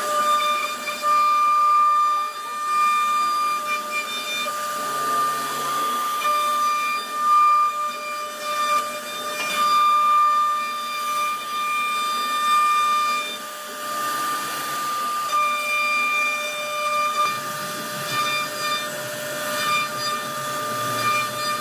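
CNC router spindle whining at a steady high pitch while its bit carves a relief pattern into a wooden panel, the cutting noise rising and falling as the bit moves through the wood.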